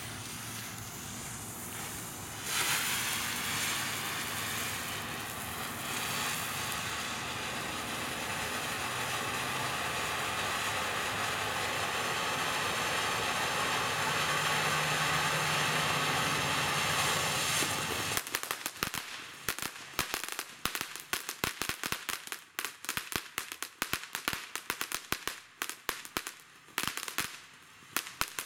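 TNT Large California Rocket Fountain firework going off: a quieter hiss at first, jumping to a loud steady spray hiss about two and a half seconds in. About eighteen seconds in the hiss gives way to dense, rapid crackling pops.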